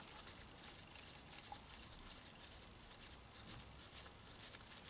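Near silence, with faint small ticks and rustles of nitrile-gloved fingers starting a bolt by hand into a motorcycle clutch slave cylinder.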